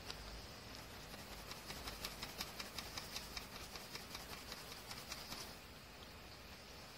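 Colored pencil scratching on sketchbook paper in quick short shading strokes, about five a second, busiest through the middle of the stretch. The sound is faint.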